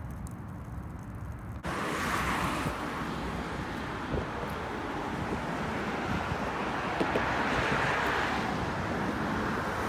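Steady rush of road traffic mixed with wind on the microphone, starting abruptly about a second and a half in after a quieter low background.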